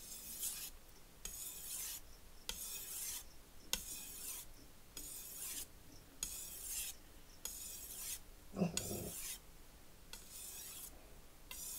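Shun chef's knife edge stroked across a wet polishing whetstone in a counted set of about ten passes, each a short gritty hiss roughly once a second, the steel being worked edge-trailing to refine and polish the edge. About three quarters through comes a short low growl from a dog.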